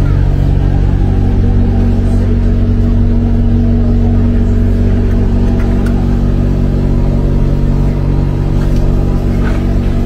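A motor running steadily, with a loud, constant low drone that holds one pitch.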